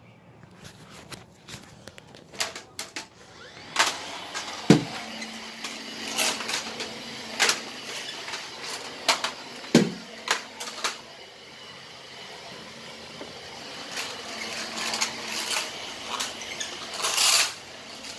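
Handling noise from a phone being carried: scattered clicks, knocks and rubbing over a low hiss, with two short dull thumps, one about five seconds in and one about ten seconds in.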